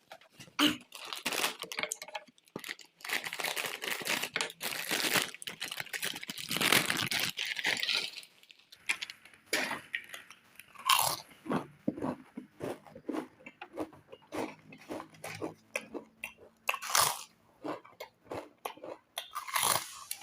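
Close-miked crunching and chewing of crunchy snack chips: dense crunching for the first several seconds, then separate sharp crunches as the chewing goes on.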